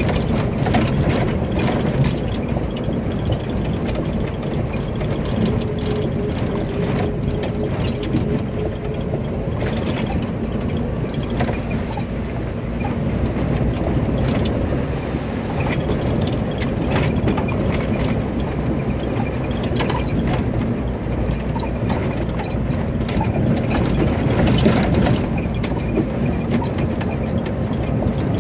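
Suzuki Katana's engine running as the jeep drives over a rough track, heard from inside the cabin, with the body and fittings rattling and clattering over the bumps throughout.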